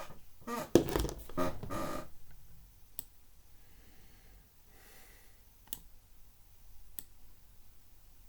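A thump with a second or so of rustling handling noise, then three sharp, separate clicks spread over the next few seconds against quiet room tone.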